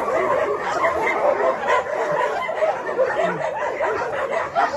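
A pack of shelter dogs barking together in a continuous uproar, many barks overlapping, set off by stray cats passing by.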